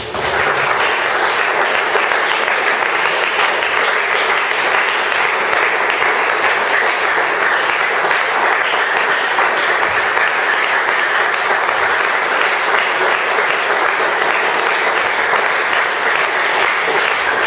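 Sustained applause from a congregation, starting abruptly and keeping up a steady, even level without a break.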